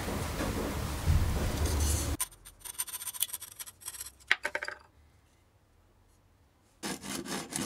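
Wooden dowel scraping as it is worked into a glued hole for about two seconds, then cut off abruptly. Then light sawing strokes and clicks of a fine coping saw on the dowel until a short quiet gap. Near the end, an even back-and-forth rubbing of wood on sandpaper begins.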